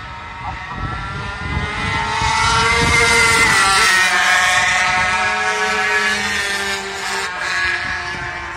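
250cc racing motorcycles going past on track at speed: the engine note climbs in pitch, swells to its loudest about three to four seconds in, then eases off and fades as they pull away.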